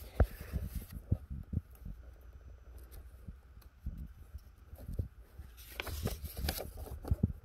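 Printed paper pages rustling as they are turned, with scattered light taps and knocks from handling. The rustle comes in two short spells, one at the start and one about six seconds in.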